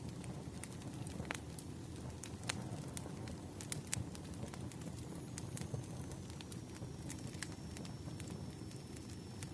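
Wood fire burning, with irregular sharp crackles and pops over a steady low rustle. A faint thin high tone comes in about halfway and holds.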